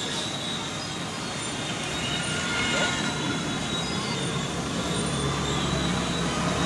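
Busy street noise: a steady hum of passing traffic with people's voices in the background.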